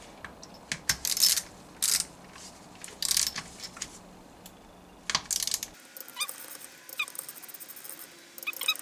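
Ratchet wrench clicking, with scraping and light metal clinks, as 12 mm bolts on the gearbox casing are run down and torqued to 22 Newton meters. Short scraping bursts come in the first few seconds, then lighter ticks and small ringing metal pings in the second half.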